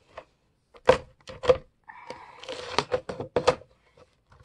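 Paper and a plastic hole-punch machine being handled: a few sharp knocks and clicks about a second in, then paper rustling and sliding with several more knocks, as pages are lined up in a wire-binding punch.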